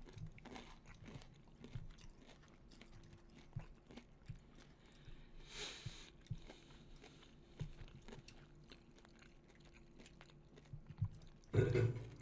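A person chewing food close to the microphone, with small scattered crunches and mouth clicks and a short breathy rush a little past halfway.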